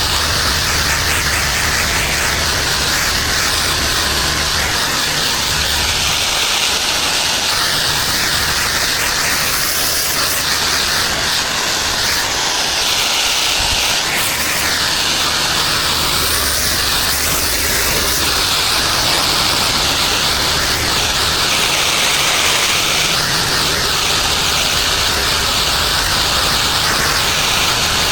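Pressure washer spraying: a loud, steady hiss of high-pressure water that swells and dips every few seconds, with a low engine hum underneath for much of the time.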